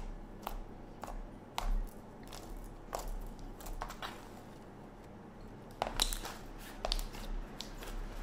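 Hands kneading and folding a thick yellow slime mixed with fake snow and kinetic sand: irregular sticky pops and crackly clicks, one or two a second, with a louder flurry about six seconds in. The slime is grainy from the snow and sand.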